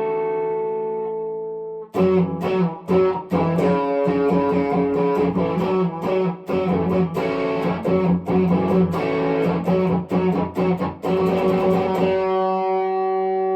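Epiphone 1959 Les Paul Standard electric guitar being played. A chord rings for about two seconds, then comes a run of quick picked notes and strums, and near the end a held chord rings out.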